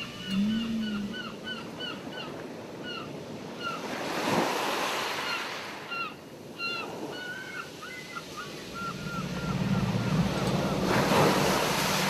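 Ocean surf washing ashore, swelling about four seconds in and again near the end, under a gull calling in quick series of short hooked notes. A low moaning tone from whale song comes in briefly near the start and builds again toward the end.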